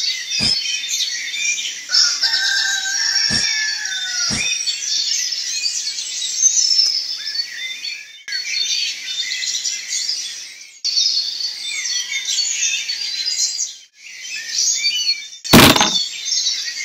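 Birdsong sound effect: many birds chirping and calling together in dense, high twitters. A few sharp clicks come in the first five seconds, and a louder hit sounds about a second before the end.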